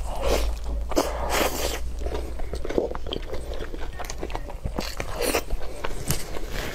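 Close-miked eating: a person biting and chewing sauce-coated meat held in the hand, with irregular wet mouth sounds and small crunches. Two louder bites come about a second and a half in and again just past five seconds.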